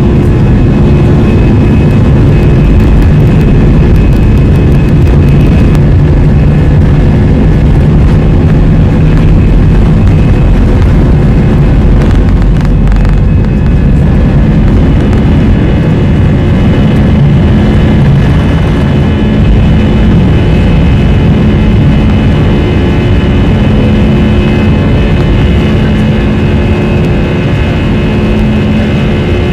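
Airbus A320 jet engines running, heard from inside the passenger cabin: a loud, steady rush with humming tones, some of which change about halfway through.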